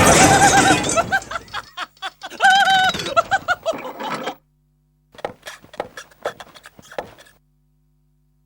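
A loud noisy clatter dies away in the first second. Then a cartoon character's voice gives a run of short, high, wavering vocal cries. After a brief silence comes a quick series of soft clicks and taps.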